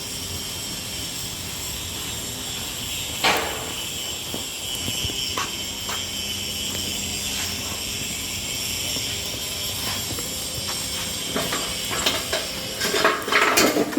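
Steady hissing and humming of running workshop machinery, with a sharp metallic knock about three seconds in and a cluster of clanks near the end.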